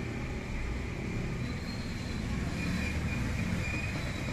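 A steady low rumble of background noise, with faint high tones coming and going.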